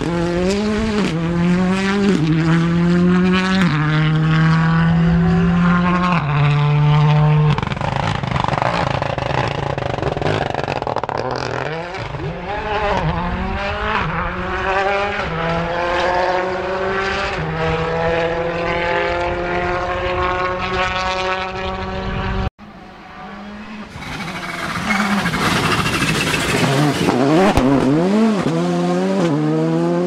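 Rally cars driven hard: the engine note climbs and then drops a step at each gear change, several shifts in a row, car after car. About three-quarters of the way through the sound cuts off, and another rally car approaches and passes, its engine note sweeping up and then down.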